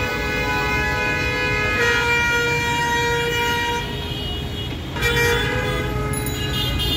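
Heavy street traffic with vehicle horns honking over a steady rumble of engines: one long held horn for about the first four seconds, overlapped by horns of other pitches, then another honk about five seconds in.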